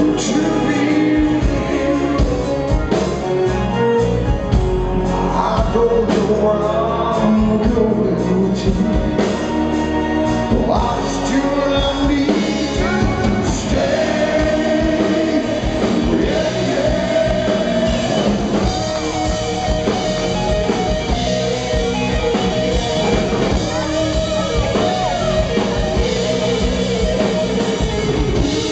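Rock band playing live, a lead vocal singing over electric guitar, bass and drums.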